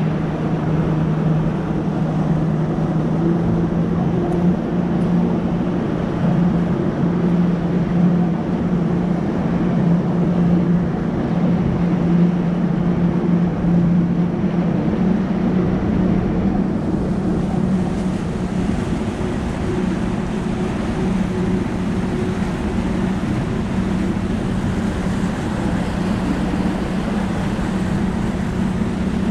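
Bass boat's outboard motor running steadily at speed, with a constant engine note over a steady rushing noise. The engine note rises slightly about seventeen seconds in.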